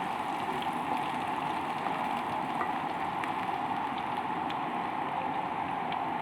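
Pork chops and garlic frying in a little oil in a pan: a steady sizzle with a few faint pops as the garlic browns.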